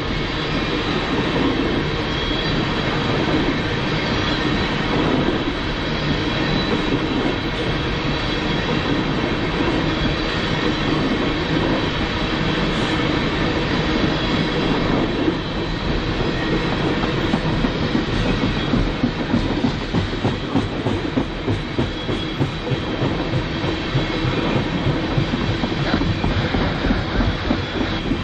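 A freight train's cars rolling past on steel wheels, a steady rumble with rhythmic clickety-clack of wheels over the rail joints, which gets sharper and more distinct in the second half.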